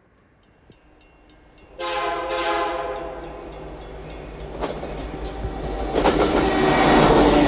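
Locomotive air horn sounding: a loud chord comes in suddenly about two seconds in and fades, then sounds again louder near the end over the rising rumble of a moving train.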